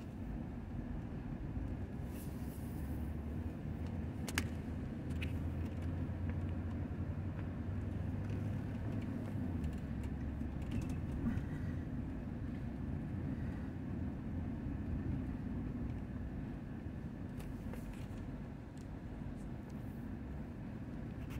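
Steady low engine and road rumble of a vehicle, heard from inside its cabin, with a few faint clicks.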